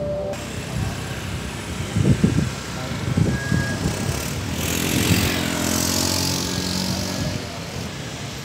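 Street traffic: a motorcycle passes close by about halfway through, its engine and tyre hiss swelling and then fading. Dull low thumps come a few seconds earlier.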